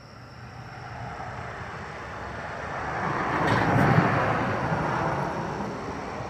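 A vehicle passing by, its tyre and engine noise building to a peak about four seconds in and then fading away.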